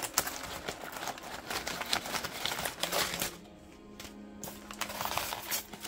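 Crumpled paper packing crinkling and rustling as a hand digs through it inside a cardboard box lined with foam, for about the first three seconds. After that the rustling dies down and only a faint steady hum with a few held low tones remains.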